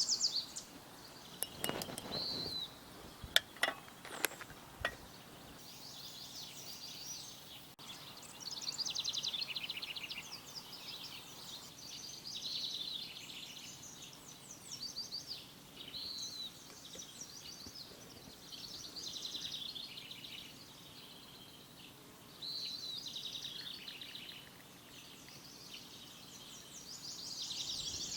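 A songbird singing short, rapid trilled phrases over and over, a second or two each with brief pauses between. A few sharp clicks come in the first few seconds.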